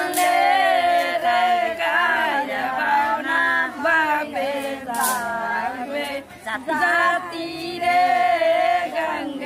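A group of women singing a Bengali wedding folk song together, without instruments, on long wavering held notes.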